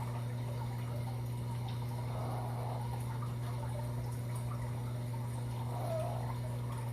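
Fennec fox whining faintly in short high calls, about two seconds in and again near six seconds, over a steady low hum.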